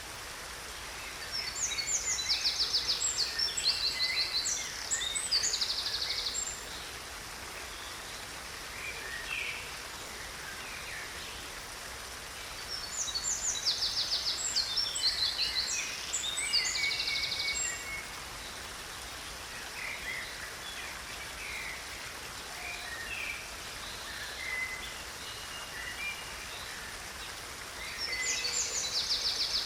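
A songbird singing over the steady rush of a stream. The bird sings loud bouts of rapid trilled phrases twice for several seconds and again near the end, with scattered quieter chirps between.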